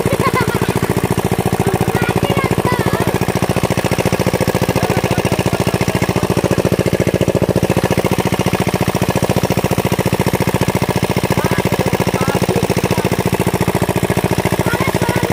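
Small engine of a tubewell pump set running steadily, with a rapid, even knocking beat.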